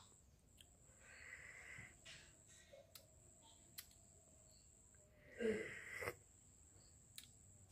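A short slurping sip of tea from a cup about five and a half seconds in, against near silence with a faint steady high whine.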